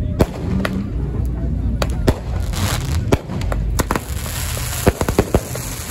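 Aerial fireworks going off: a rapid string of sharp bangs and crackling pops, with a hissing rush about halfway through as rockets go up.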